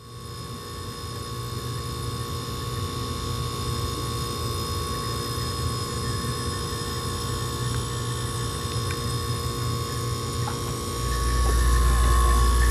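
Steady electrical hum of a refrigerator, made of several constant tones, swelling in at the start and growing louder, with a deep low drone joining near the end.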